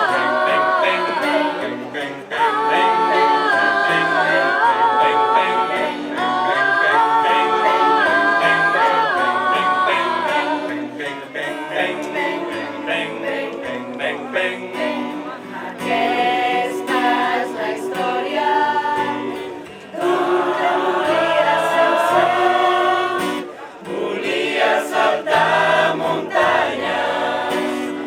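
A choir singing a song together, several voices in parts, with short breaks between phrases.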